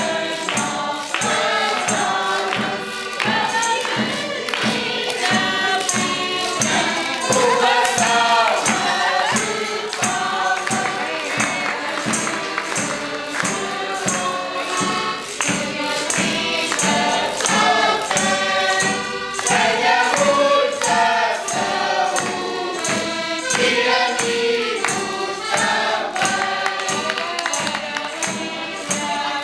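Live folk group singing together in chorus, with a bass drum and hand percussion keeping a steady beat and people clapping along.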